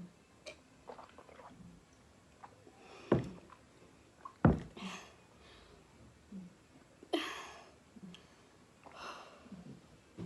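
Close-up mouth sounds of drinking lassi, with sniffs and breathy slurps or exhales. Two sharp, loud sounds come about three and four and a half seconds in, followed by several breathy hissing sounds.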